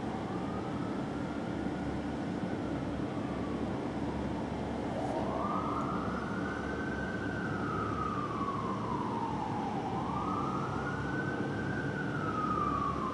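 Fire apparatus siren on a slow wail, rising and falling in long sweeps about five seconds each. It is faint at first and much louder from about five seconds in, over a steady low rumble.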